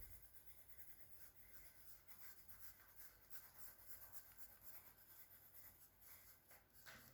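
Faint scratching of a drawing tool on paper: short, irregular strokes as patterns are drawn onto the sketch.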